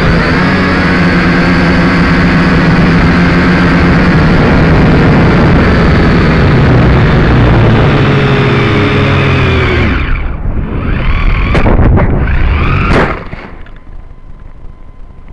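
Syma X5C-1 quadcopter's motors and propellers buzzing loudly, heard through its own onboard camera with air rushing past. About ten seconds in, the sound breaks up, and two sharp hits follow as the out-of-control drone crashes into vegetation. The motors then stop, leaving only a faint hiss and a thin steady whine.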